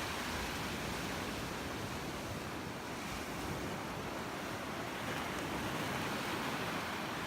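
Ocean surf: a steady, even wash of waves.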